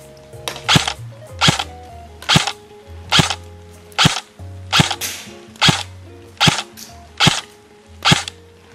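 Cybergun Colt M4 Special Forces Mini airsoft electric gun (AEG) firing single semi-auto shots, about ten sharp cracks a little under a second apart, over background music.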